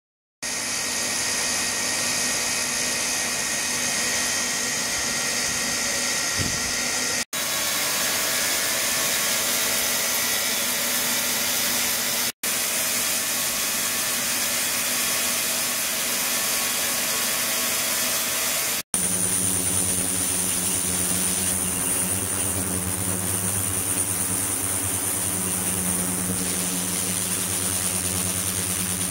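Flowing-water ultrasonic cleaning rig running: a steady rush of water mixed with machine hum, its character changing abruptly three times. In the last part a steady high-pitched whine and a low hum come in.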